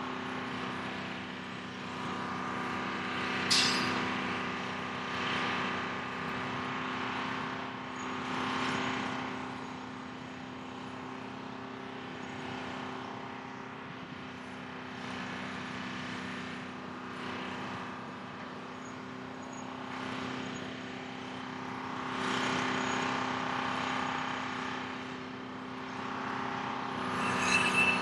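Grove rough-terrain crane's diesel engine running steadily while it holds a suspended steel load, with a few swells in engine noise. A single sharp knock about three and a half seconds in, and a louder rise near the end.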